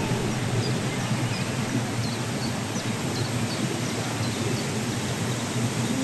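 Waterfall rushing steadily, with faint short high chirps scattered through it.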